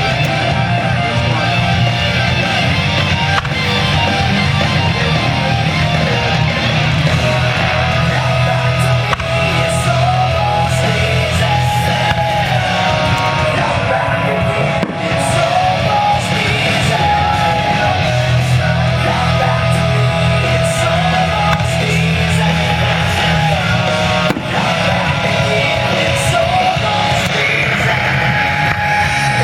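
Loud, steady rock music with guitar.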